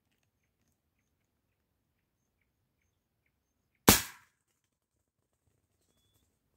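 A single shot from a bate-bucha, a muzzle-loading black-powder shotgun, about four seconds in: one sharp report that dies away within half a second.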